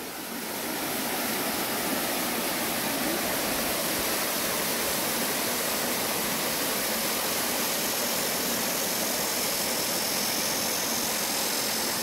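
Small waterfall pouring over rock ledges into a pool: a steady rush of falling water that grows louder over the first second, then holds even.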